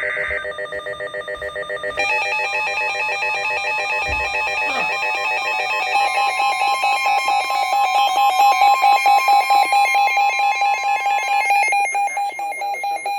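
Weather radio emergency alert sounding for an incoming severe thunderstorm warning: a rapidly pulsing multi-tone alarm that gets louder about two and six seconds in and cuts off just before the end. It opens with the last of a screechy digital header burst.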